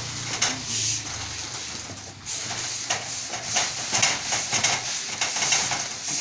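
Hose-fed steam iron hissing in short, repeated bursts of steam as it is pressed over cloth.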